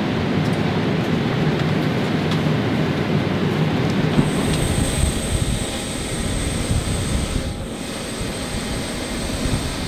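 Steady jet airliner noise: a low cabin hum and rumble inside the parked plane. From about four seconds in it gives way to steady outdoor jet noise on the apron, with a thin high whine running over it.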